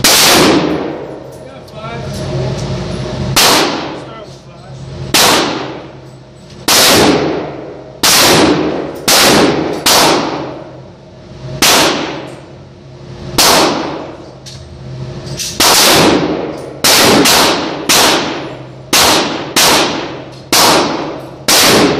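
Norinco Type 56 SKS semi-automatic rifle firing 7.62×39mm rounds in a long series of about sixteen single shots, at first a second or two apart and then quicker, under a second apart, in the second half. Each loud report rings out in the echo of an indoor range.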